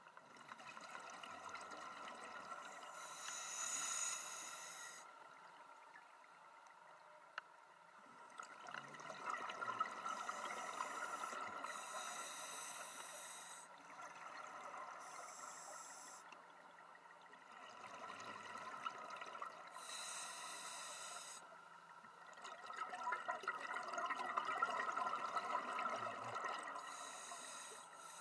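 Scuba breathing underwater through a regulator: hissing inhalations through the demand valve alternate with exhaled bubbles gurgling out, in slow breaths that repeat every several seconds.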